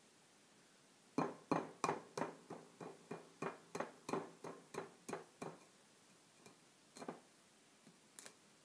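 A glazed ceramic bowl is tapped about a dozen times in quick succession, roughly three taps a second, and each tap leaves a short ring. After a pause come two more single taps near the end.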